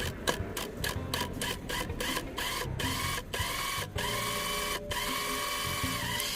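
Electric power tool motor running in short runs, its whine rising in pitch as it spins up and then holding steady, with abrupt stops between runs.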